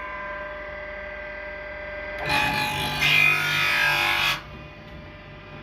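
Straight knife grinder's cup wheel grinding a planer blade: a steady motor hum, with a loud rasping grind for about two seconds in the middle as the wheel passes over the blade, then back to the hum alone.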